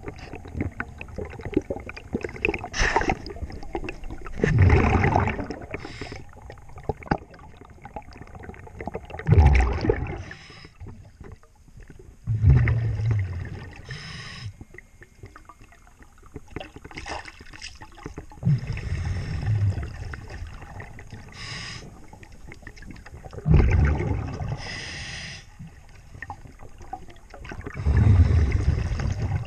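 A diver breathing underwater through a scuba regulator: a short hiss on each inhale, then a low rumbling gush of exhaled bubbles every few seconds, six exhales in all.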